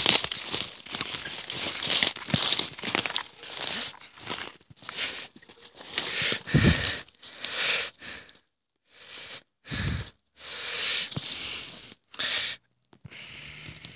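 Footsteps crunching and rustling through dry fallen leaves at a walking pace, with a few heavier thumps, broken by brief silences in the second half.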